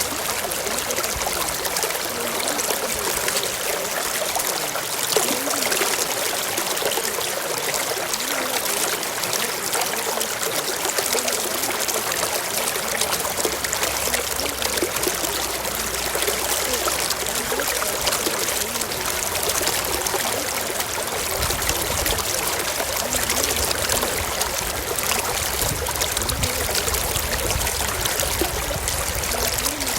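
Steady running water, like a flowing stream, used as a masking bed over subliminal affirmations.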